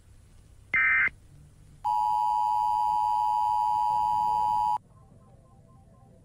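Emergency Alert System broadcast tones. There is one short data burst about a second in, the last of the header bursts. It is followed by the steady two-tone attention signal, which holds for about three seconds and then cuts off suddenly, leaving a faint hum.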